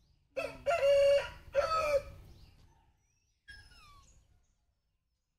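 A rooster crowing once, a cock-a-doodle-doo of about two seconds in three parts with a long held middle note. A few faint, short falling bird chirps follow.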